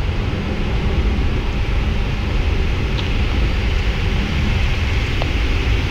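Steady cockpit noise of a Boeing 777 taxiing: a low rumble under an even rushing hiss.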